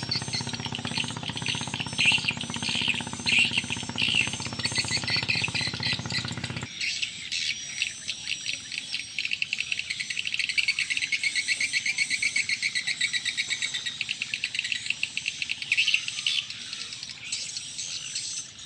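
Birds chirping over rapidly pulsing insect calls. A low steady hum underneath cuts off abruptly about a third of the way in.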